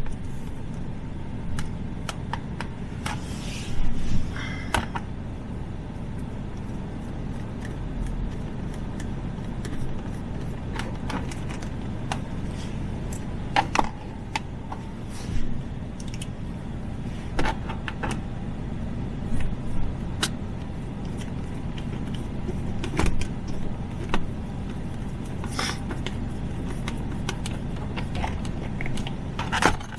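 Scattered clicks, taps and small knocks of plastic center console lid parts being handled and fitted back together, over a steady low background rumble.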